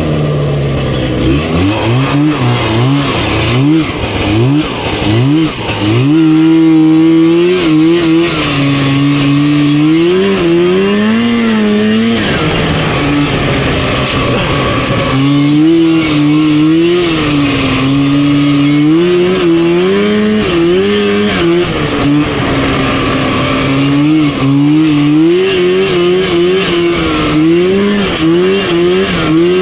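Rotax 503 two-stroke twin snowmobile engine running under varying throttle, its pitch swinging up and down over and over. The pitch sags about twelve seconds in and climbs again about three seconds later.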